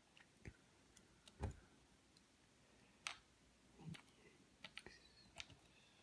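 Faint, irregular clicks and taps of metal tweezers picking up small brass lock pins on a grooved pin tray, with a quick run of several clicks near the end.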